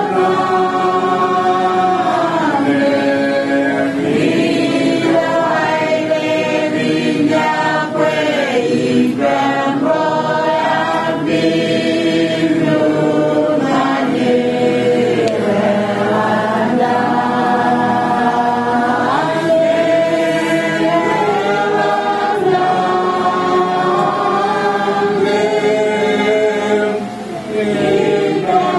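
Mourners singing a hymn together, many voices holding long notes that slide from one pitch to the next.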